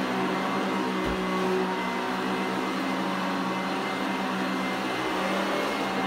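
Eureka ESP upright vacuum cleaner running steadily, its motor giving an even hum and whine.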